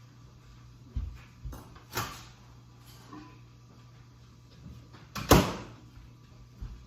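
A few separate knocks and bumps of things being handled in a kitchen, with the loudest knock, like a door or cupboard shutting, a little past five seconds in.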